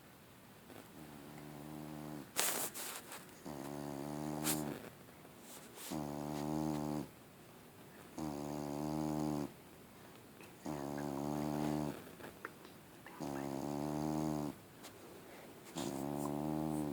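A huge fluffy domestic cat snoring in its sleep. There are about seven even snores, each a bit over a second long and coming roughly every two and a half seconds. Near the start there are a couple of sharp clicks.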